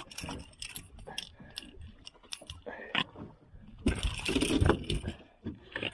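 Water splashing beside a boat, with scattered clicks and knocks of fishing tackle being handled; the splashing is heaviest about four seconds in.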